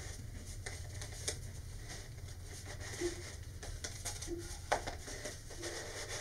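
Paper model-rocket transition shroud and cardboard body tube handled and turned in the hands: faint rubbing and scattered light clicks, two of them sharper, over a low steady hum.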